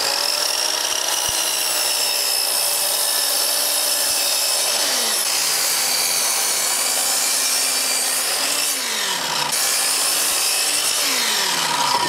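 Chicago Electric sliding miter saw running and cutting through a wooden board, its motor giving a steady high whine over the rasp of the blade in the wood. The whine drops in pitch a couple of times in the last few seconds.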